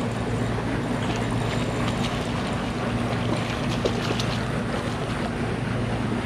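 Wind buffeting the microphone over water lapping at a small kayak, with a steady low hum and a few faint scattered ticks.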